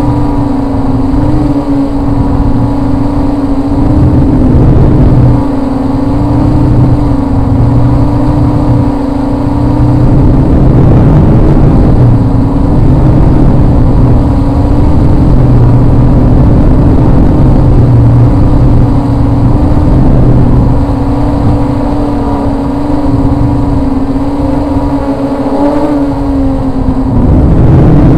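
Walkera Scout X4 quadcopter's motors and propellers humming steadily at one pitch that wavers only slightly, with a loud low rumble of wind on the onboard camera's microphone. The hum bends briefly and the level rises near the end.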